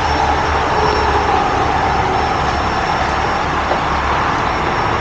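Heavy tow truck's diesel engine running steadily, powering the hydraulic boom.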